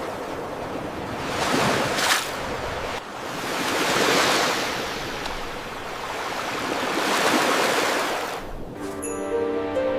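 Ocean waves washing in, in three slow swells a few seconds apart. Chiming music comes in near the end.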